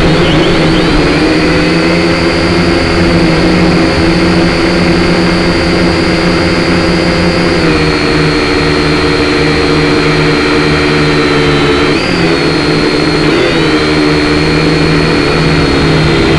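Syma X5C quadcopter's four small brushed motors and propellers whining steadily, heard close up through the drone's own onboard camera. The pitch drops slightly about eight seconds in and wavers briefly twice a few seconds later as the throttle changes.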